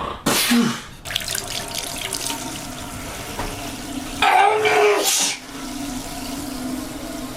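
Water running steadily, as from a tap into a sink, broken by a short loud burst near the start and a longer, louder burst about four seconds in.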